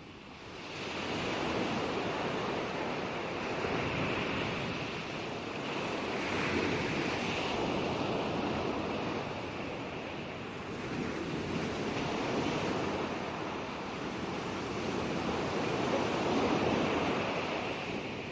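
Ocean waves breaking and washing on a shore, a continuous surf noise that swells and eases in slow surges, several times over, the last surge the loudest.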